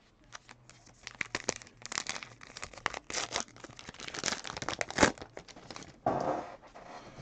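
Trading card pack wrapper crinkling and tearing as a fresh pack is ripped open: a dense run of crackles over several seconds, loudest about five seconds in.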